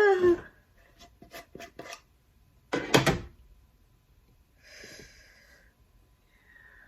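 A tightly screwed-on container lid being forced open by hand: a few small clicks, a loud scraping knock about three seconds in, then a softer rubbing. A short strained vocal exclamation at the very start.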